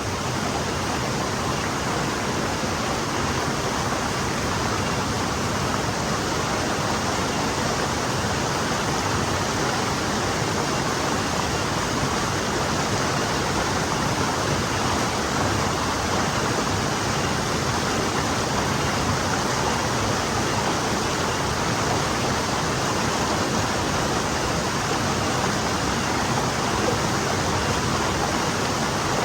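Small forest stream flowing, a steady, even rush of water without breaks.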